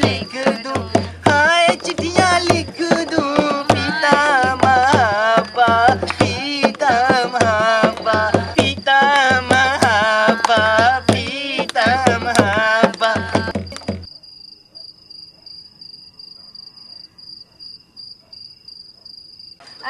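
A song sung with a wavering voice over a steady drum beat, which cuts off suddenly about fourteen seconds in, leaving crickets chirping at night.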